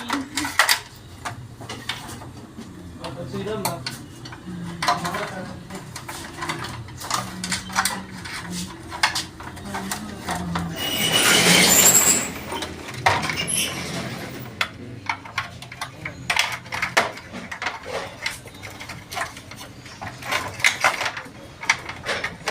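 Metal parts and tools clinking and knocking as they are handled, in irregular clicks. A rushing noise swells up about eleven seconds in and dies away a second or two later.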